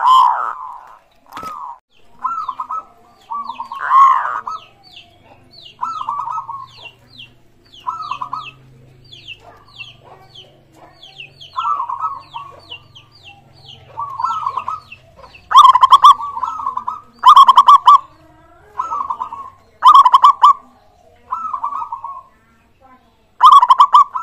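Zebra dove (perkutut) cooing, one short rolling phrase after another, much louder in the second half. A smaller bird chirps quickly and steadily in the background through the first half.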